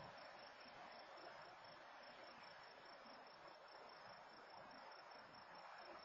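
Near silence: faint, steady night ambience, a soft hiss with a thin steady high tone.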